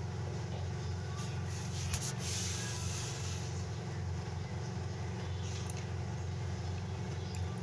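Thick Schezwan sauce being stirred with a metal ladle in a pan over a gas burner, with a few light clicks of the ladle against the pan, over a steady low kitchen rumble.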